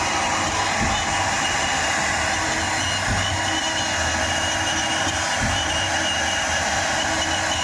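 CNC wood router running: a steady spindle whine over motor and machine noise, with faint brief pitch glides from the drive motors now and then.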